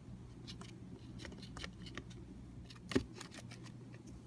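Faint steady hum with a scattering of small clicks and one sharper tap about three seconds in.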